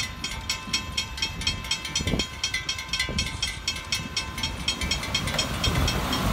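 Railroad grade-crossing warning bell ringing in rapid, even strikes while the gate arms rise after the train has cleared, stopping about five seconds in. Road traffic starts moving across the crossing near the end.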